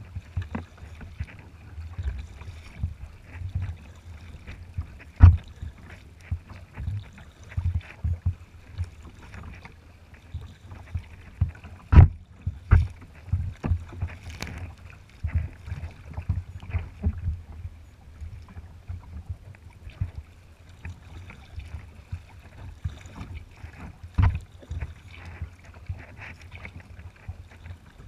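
Choppy water slapping and splashing against a kayak's hull as it moves through waves, with wind rumbling on the microphone. Several sharp knocks stand out, the loudest about 5, 12 and 24 seconds in.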